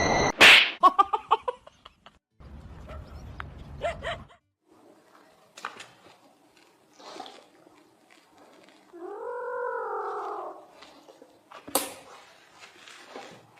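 A sharp loud knock about half a second in, then scattered clicks and rustles, and an animal's single long call about nine seconds in that rises and then falls in pitch.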